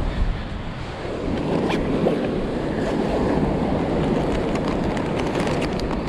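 Steady wind rushing over the microphone, mixed with surf breaking on the beach, with a few faint clicks.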